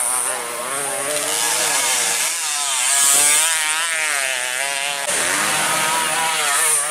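Dirt bike engines revving hard, their pitch rising and falling quickly as the throttle is worked, with an abrupt change in the sound about five seconds in.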